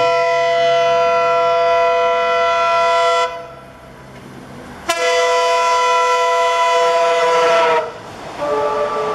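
WDM-3A diesel locomotive's air horn sounding a two-note chord in three blasts: two long loud ones of about three seconds each, then a quieter, lower-pitched one near the end.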